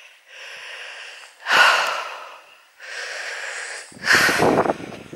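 A hiker's heavy breathing while climbing a steep path: a few rushes of in- and out-breath, with the louder breaths about one and a half and four seconds in.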